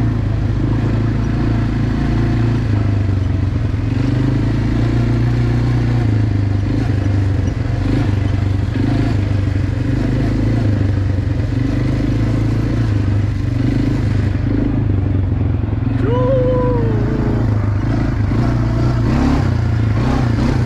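Quad bike engine running steadily under way, a continuous low drone at an even level. About sixteen seconds in, a brief wavering high note rises and falls over it.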